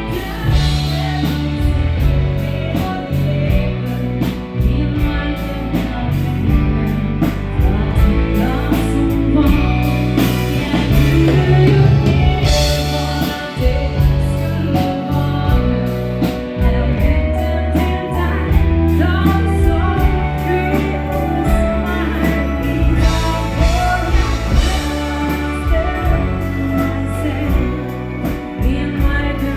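Dance band playing a song: a singer over a bass line and a steady drum beat.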